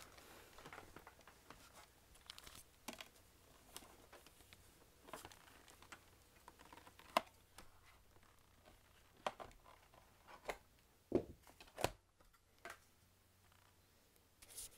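Faint, scattered clicks and knocks from the plastic body of a Shark DuoClean lift-away vacuum being handled, with a denser run of knocks near the end. The motor is not running.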